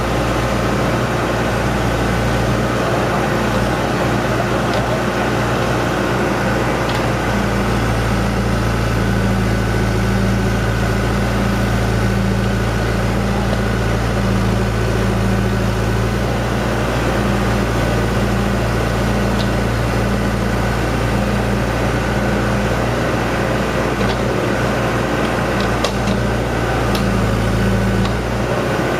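Backhoe engine running steadily, its note shifting and pulsing as the machine works, with a few faint clanks near the end.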